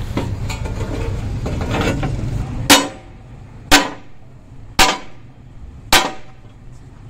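Hammer blows on the steel frame of a Hino 8J truck chassis: four sharp, ringing strikes about a second apart, starting after a couple of seconds. A low steady rumble runs under the start, before the strikes begin.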